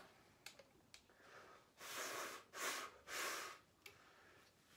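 Three short rushes of breath blown through a cloth face mask across a flute, a little after the middle: only air noise and no note, because the mask blocks the airstream. A few faint clicks, likely the flute's keys, come and go around them.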